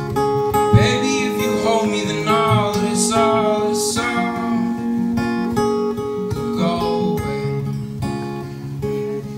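Acoustic guitar playing picked and strummed chords, with a man's singing over it from about one to four seconds in and again briefly near seven seconds.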